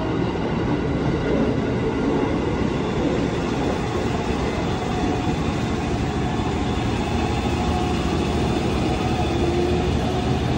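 Jakarta KRL electric commuter train running alongside the platform: a steady rumble of wheels and running gear. Near the end a faint tone rises in pitch.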